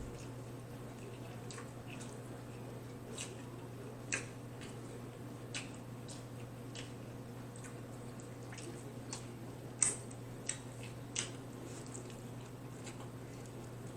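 Close-miked wet chewing and mouth clicks of a person eating tacos: scattered, irregular soft clicks, one louder about ten seconds in, over a steady low hum.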